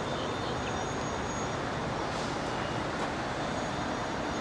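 Steady rushing background noise with no single event standing out.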